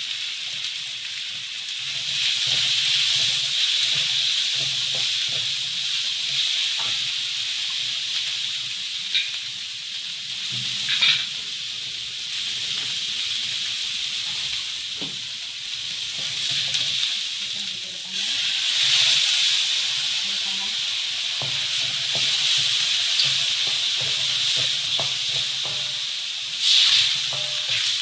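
Diced fish cake and hot dog sizzling in hot oil in a wok as they are stir-fried, with a spatula scraping and tapping against the wok now and then.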